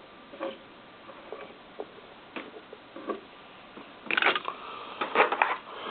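Light clicks and taps of small die-cast metal toys being picked up, turned over and set down, scattered at first, then a short clatter about four seconds in and another about a second later.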